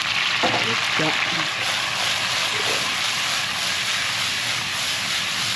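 Chopped scallion, ginger and garlic sizzling in hot oil as they are stir-fried to bring out their aroma; a steady, even hiss.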